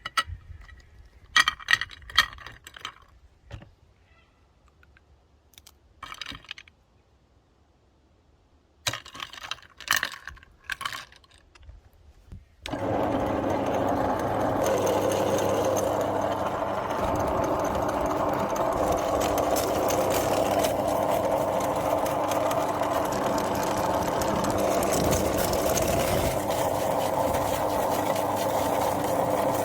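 A few sharp clicks and knocks, then about 13 seconds in an electric meat grinder switches on and runs steadily with a constant motor hum, grinding ice cream.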